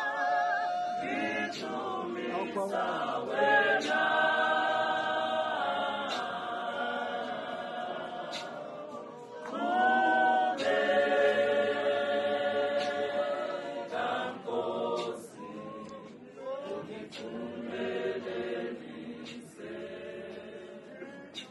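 Mixed church choir of men and women singing together in long held phrases that swell and fade; a new phrase comes in loudly about ten seconds in.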